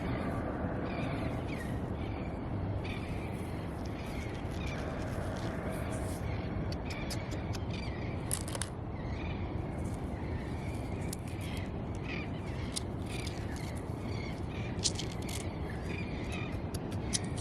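Short bird calls repeating every second or so over a steady rushing noise, with scattered sharp clicks.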